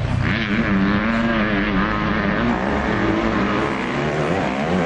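Motocross dirt bike engines running hard, their pitch rising and falling over and over as the riders work the throttle on the track.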